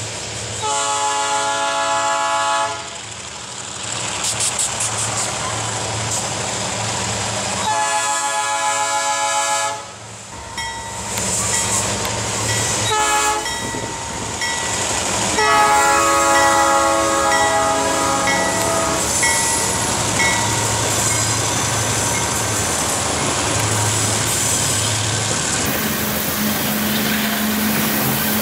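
Diesel freight locomotive's multi-chime air horn sounding two long blasts, a short one and a final long one. Under the horn the locomotive engines rumble, and near the end empty grain hopper cars roll past on the rails with continuous wheel and rail noise.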